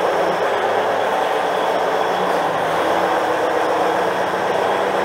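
A vehicle engine running steadily: an even rushing noise with a low, steady hum underneath.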